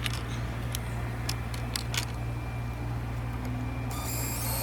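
A steady low hum with a handful of light clicks and taps scattered through it. Near the end a faint high whine sets in.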